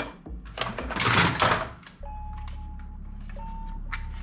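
Hard plastic toy guns knocking and clattering as they are handled on a table. About halfway the clatter stops and a steady low hum with short beeping tones takes over.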